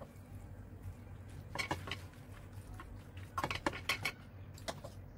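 Metal spoon pressing and spreading pasta in a glass baking dish, clinking and scraping against the glass in two short clusters, a little under two seconds in and again around three and a half seconds in. A steady low hum runs underneath.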